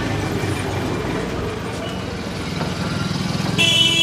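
Street traffic: a motor vehicle's engine running close by with a steady low rumble, and a vehicle horn honking loudly near the end.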